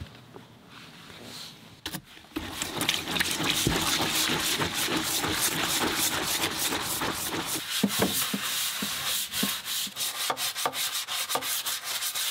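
Scrub brush scrubbing in soapy water, a steady, dense scratching that breaks into quick, rhythmic strokes near the end. The first couple of seconds are fairly quiet while soap is poured into the tub.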